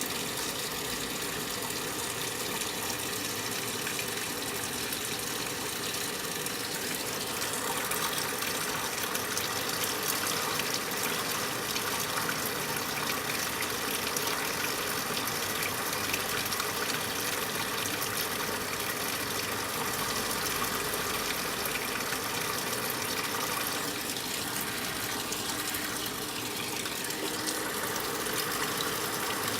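Brastemp 9 kg washing machine with a steady rush of water in its tub, as when it is filling.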